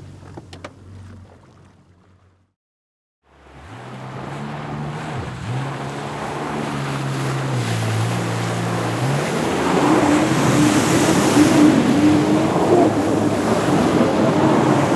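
Jet ski engine fading out to silence about two and a half seconds in. Then another run starts: the engine note steps up in pitch as it grows louder, with water spray hissing, and it runs at higher revs, loud and wavering, through the second half.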